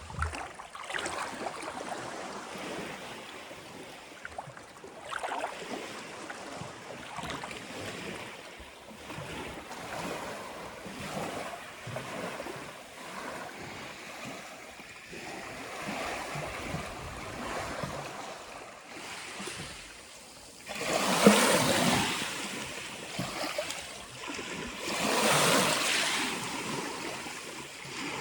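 Calm sea waves washing onto the shore in a steady wash, with two louder waves surging in near the end.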